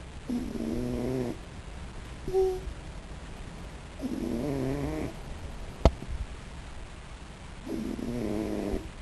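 Raccoon snoring in its sleep: three slow snores, roughly every three and a half seconds. A brief squeak comes about two seconds in, and a sharp click, the loudest sound, near six seconds.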